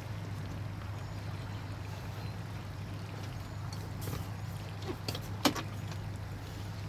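Boat engine running with a steady low drone as the boat moves along. A sharp click about five and a half seconds in.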